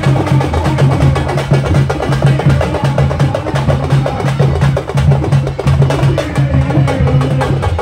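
Drums played in a fast, dense rhythm over a pulsing low beat.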